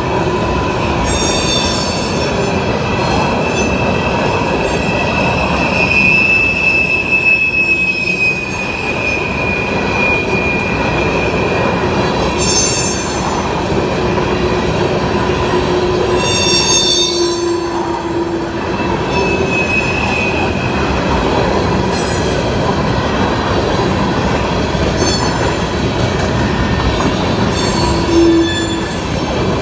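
Empty coal hopper cars of a CSX unit train rolling past at speed: a steady rumble with drawn-out wheel squeals that waver in pitch, and short bursts of clatter every few seconds.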